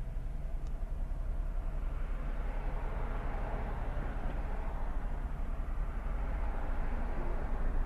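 A vehicle driving in traffic: steady low engine hum and road noise, with a broad swell of noise from about two to six seconds in.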